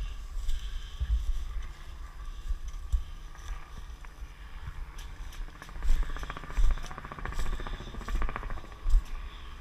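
Footsteps and brushing through leafy undergrowth, with irregular thumps of a body-worn camera being jostled. A rapid buzzing rattle rises about halfway through and runs for a few seconds.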